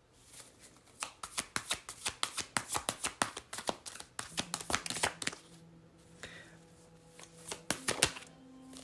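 A tarot deck being shuffled by hand: a quick run of crisp card clicks for about four seconds. From about four seconds in, soft sustained background music tones come in under it.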